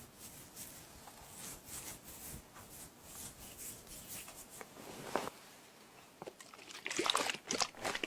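Close-miked ASMR hand sounds of hair being scrunched and rubbed: soft rustling strokes, turning into louder, crisp, crackly scrunches near the end.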